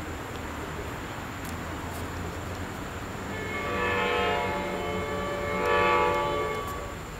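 Horn of an approaching train sounding two long blasts, starting about three seconds in, over a steady low rumble.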